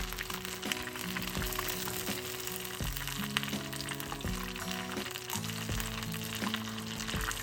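Oil sizzling and crackling as breaded oysters deep-fry, under light background music with a steady sequence of notes.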